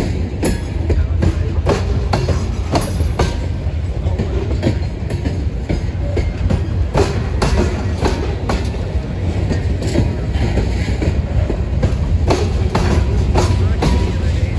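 Freight train's cars rolling past, a steady deep rumble with wheels clicking and clanking over rail joints, often in quick pairs.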